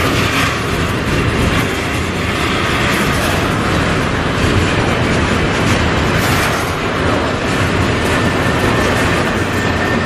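Double-stack container freight train rolling past close by: a loud, steady rumble and rattle of the well cars' wheels on the rails. A faint, thin, high squeal joins in over the last couple of seconds.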